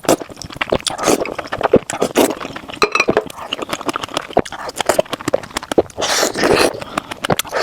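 Close-miked eating of spicy noodles: wet chewing and mouth smacks in quick irregular clicks, with light utensil clinks and a longer noisy stretch about six seconds in.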